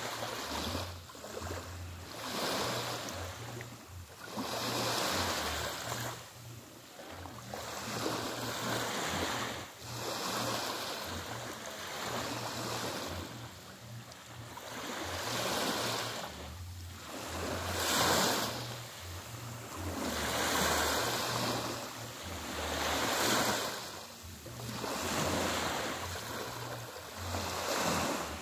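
Small sea waves lapping and washing up a sandy shore, each wash swelling and fading about every two to three seconds.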